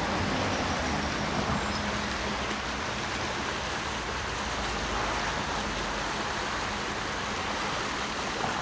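Steady rush of a creek running high.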